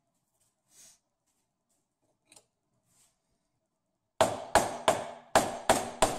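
Hammer striking a screwdriver driven into the ground groove of a microwave-oven transformer's welded steel core, working the end off. After a few faint clicks, about four seconds in come six sharp metallic strikes, about three a second, each ringing briefly.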